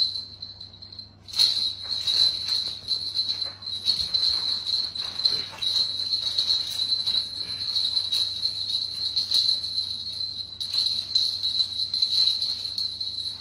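A high, steady, finely pulsing trill like a cricket chirping, with soft rustling and light clicks underneath.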